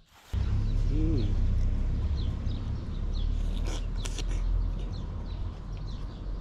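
Wind rumbling on the microphone, with birds chirping now and then and a low, bending bird call about a second in.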